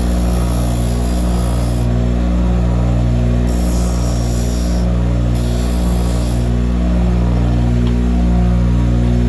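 Grinder motor running steadily, with three spells of high hissing as cut metal pen tubes are held to the wheel to grind off their burrs.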